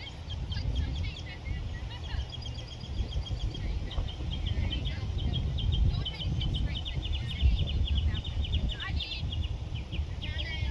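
Wind rumbling on the microphone, with runs of quick, high chirping repeating several times a second, thickest in the middle.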